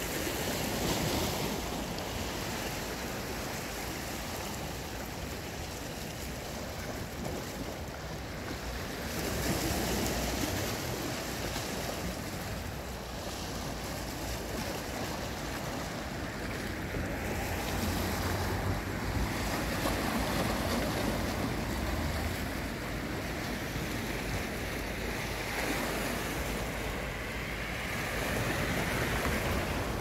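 Sea waves washing against a rocky sea wall: a continuous rush of surf that swells and eases every several seconds.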